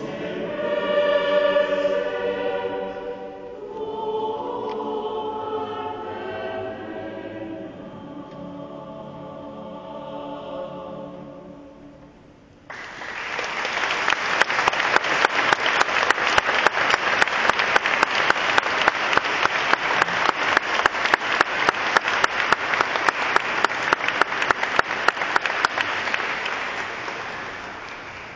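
Mixed choir singing, its sound dying away; after a brief lull, audience applause breaks out suddenly about halfway through and carries on, fading near the end.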